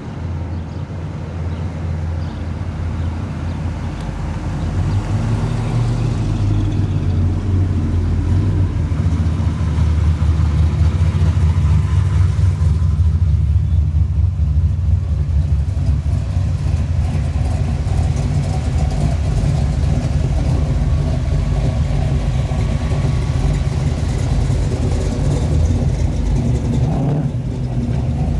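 Classic American cars and a vintage pickup driving slowly past one after another, their engines running with a deep, low exhaust note that grows louder around the middle as cars pass close.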